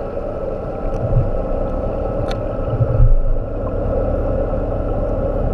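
Underwater sound through a GoPro Hero3+ waterproof housing: a steady low rumble with a constant hum, typical of a nearby boat's engine heard through the water. Two low swells of water noise come about one and three seconds in, with a single sharp click a little after two seconds.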